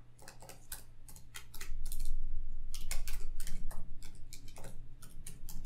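Typing on a computer keyboard: a quick, irregular run of key clicks as a web address is typed, over a faint steady low hum.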